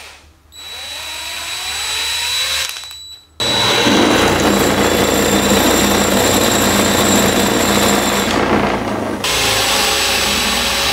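Cordless drill whirring, its pitch rising as it spins up, then a loud steady grinding noise from about three seconds in as the drill spins a tungsten electrode against a bench grinder's stone. The tungsten is being ground to a blunt point for AC aluminum TIG welding.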